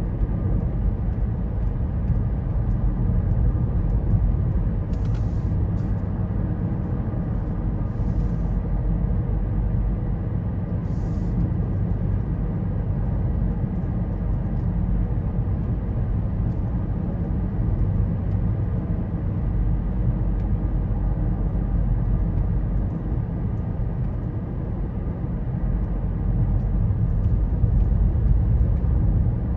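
Road noise inside a moving car's cabin: a steady low rumble of tyres and engine while driving at an even speed, with a few brief faint high hisses about five, eight and eleven seconds in.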